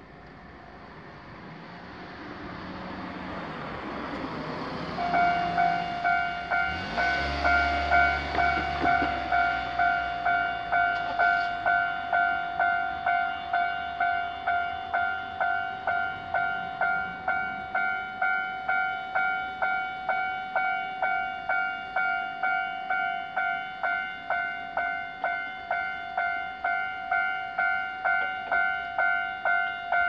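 Japanese railway level-crossing warning bell. It starts about five seconds in and then rings on steadily as an electronic clang repeating nearly twice a second, warning that a train is coming as the barriers lower. Before it starts, a rumbling noise swells.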